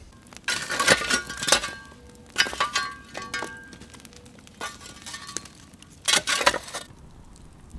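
Clinks and scrapes with short ringing tones, in four bursts about a second or two apart, as the campfire's coals and rocks are worked with a tool.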